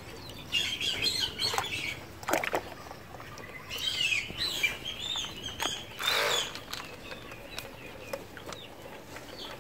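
Ducklings peeping in bursts of high chirps, with a brief splash about six seconds in.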